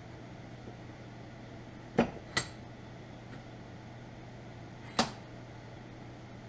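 Sharp metallic knocks of starter motor parts being handled and set together at a vise: two about half a second apart, then a third about three seconds later.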